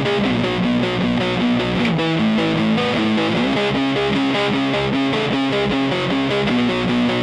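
Punk rock band playing an instrumental passage: distorted electric guitar riffing over bass and drums at a steady, loud level, with no vocals.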